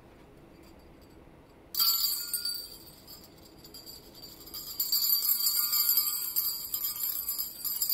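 Small Christmas jingle bells on a hanging decoration, shaken by hand: a sudden burst of jingling about two seconds in that fades out, then jingling again through the last three seconds.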